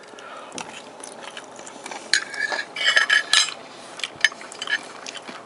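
Metal fork clinking and scraping against a dinner plate while picking up food, a few ringing clinks starting about two seconds in, most of them near the middle.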